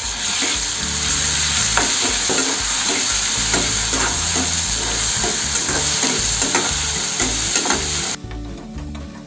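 Ginger-garlic paste frying with browned onions in hot oil in a kadai, sizzling loudly while a spatula stirs and scrapes the pan about twice a second. The sizzle cuts off abruptly near the end.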